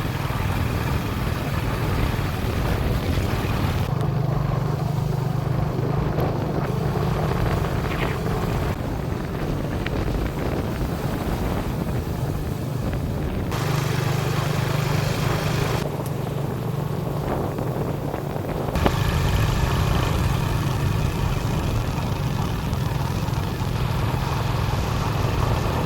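An engine running steadily, a low drone with wind buffeting the microphone, in several stretches that cut abruptly from one to the next.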